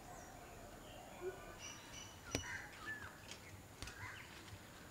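Faint birds calling: scattered short chirps and whistled calls over a quiet outdoor background, with one sharp click a little over two seconds in.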